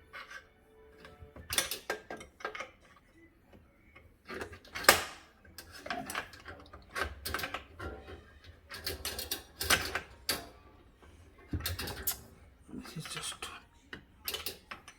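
Irregular metallic clicks, clanks and scrapes of hand tools working loose a water-line fitting, with the loudest knock about five seconds in.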